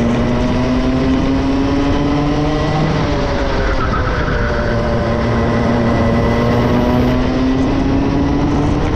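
Two-stroke racing kart engine running hard, its pitch climbing for the first few seconds, dropping about three seconds in, then climbing steadily again to near the end.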